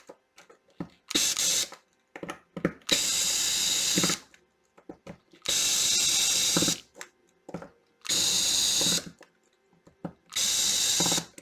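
A power tool run in five short bursts of about a second each, with pauses between them.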